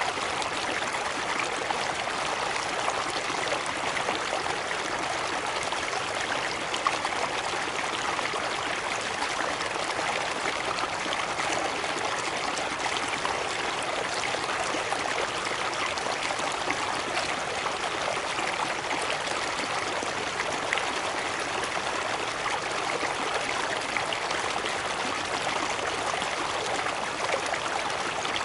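Water of a cascading stream running over rocks: a steady, even rush with fine splashing throughout.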